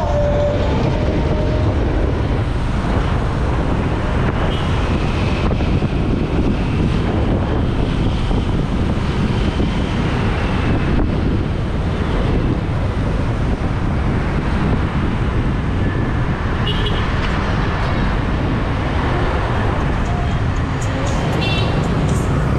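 Steady, loud road and traffic noise heard while moving along a busy street full of motorbikes and cars, with a rumble underneath. A few brief horn beeps come late on.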